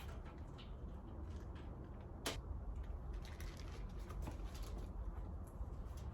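Faint handling clicks and taps, with one sharper click a little over two seconds in, as rubber pads are fitted onto the ends of the steel shelving uprights, over a low steady hum.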